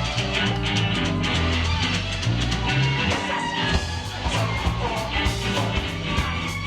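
Live rock band playing an instrumental passage, with no vocals: a bass line of repeated low notes under steady drums and guitar.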